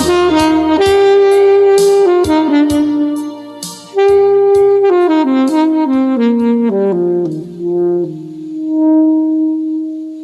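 Alto saxophone playing the closing phrase of a slow ballad over a backing track with percussion. The melody steps downward, the backing drops away, and it ends on one long held note that fades out.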